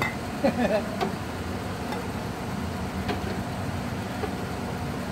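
Roadside noodle stall: a few light metal clinks of a ladle against the steel broth pot and bowl, over a steady low hum of street traffic, with a brief voice about half a second in.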